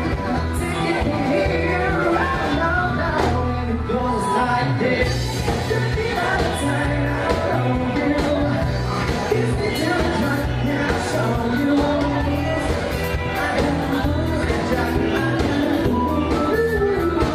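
Live pop band playing through a PA: a singer with drums, bass and electric guitar over a steady beat.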